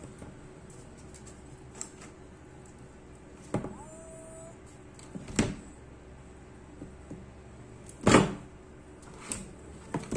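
Clips and edges of an LCD monitor's frame clicking and snapping as they are pried apart with a pointed tool: a handful of scattered sharp snaps, the loudest about eight seconds in.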